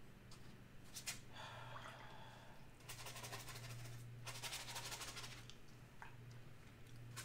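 Soft brushing of a watercolour brush over wet paper in short strokes, softening the edges of a painted sky, over a faint steady low hum.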